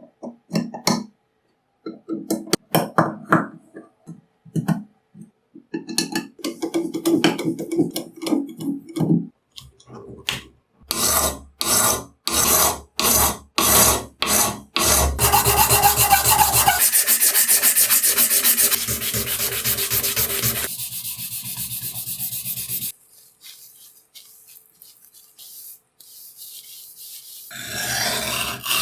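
Hand filing and sanding strokes on a rusty cleaver, in a run of short clips: scattered rubs at first, then about two quick strokes a second from around eleven seconds in. This gives way to a dense, steady rasping for several seconds, then fainter rubbing, and louder rasping again near the end.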